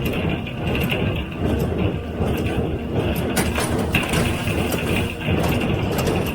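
John Deere 348 square baler with a #42 pan kicker ejector running at work, a steady mechanical drone with clattering knocks from the baling machinery.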